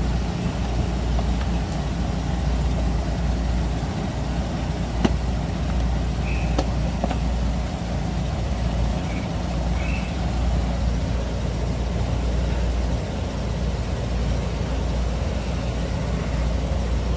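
Steady low rumble of an idling vehicle engine, with two sharp clicks about five and six and a half seconds in and a few faint high chirps.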